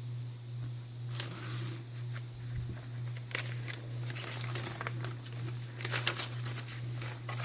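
Paper pages and tags of a handmade journal being handled and turned, rustling and crinkling in quick irregular crackles from about a second in, over a steady low hum.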